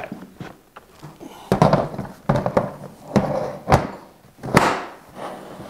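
Hard plastic Milwaukee PACKOUT tool box knocking against another as it is lifted and set onto the stack, a run of about seven clunks and clicks over three seconds as it seats and latches on.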